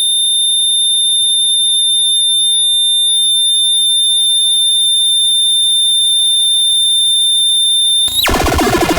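Harsh noise music: a loud, steady, piercing high-pitched electronic tone held unbroken for about eight seconds, with faint warbling sounds beneath it, until dense distorted noise crashes back in near the end.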